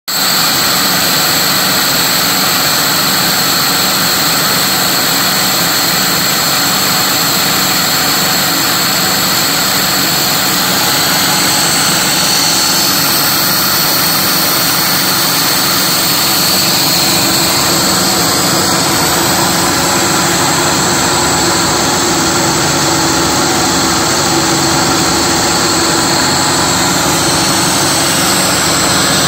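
Bridgeport vertical milling machine under CNC control, its end mill cutting aluminium: a loud, steady cutting noise with a steady high whine.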